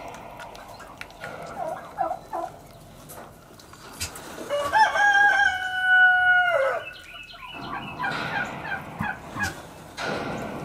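A rooster crows once about four and a half seconds in: one long held call that drops away at the end. A run of shorter, rapid fowl calls follows near the end.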